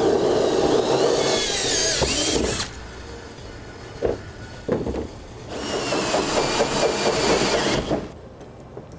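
Cordless drill cutting through a plastic bed liner and a steel truck bed with a 3.5-inch hole saw: two bursts of cutting with a high, wavering whine, separated by a pause of about three seconds that holds a couple of light knocks.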